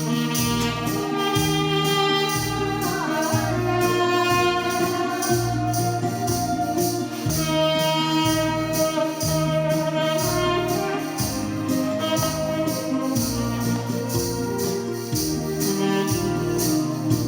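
Background music with a steady, jingling high beat over held bass notes and a melody.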